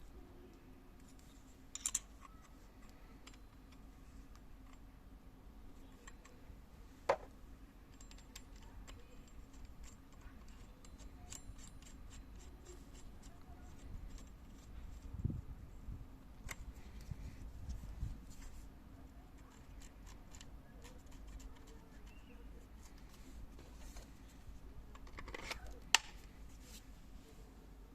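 Quiet handling sounds while unpacking a cordless multi-cutter and its packaging: scattered light clicks and rustles, with a few sharper clicks about two seconds in, about seven seconds in, and near the end. The tool itself is not running.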